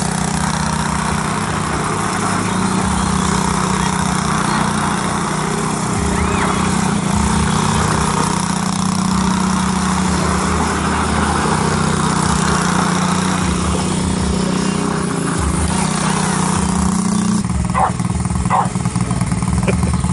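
Chinese 90cc ATV engine running with its pitch shifting as it circles on gravel, with tyres crunching over the stones. Near the end the engine drops back as the quad slows and stops.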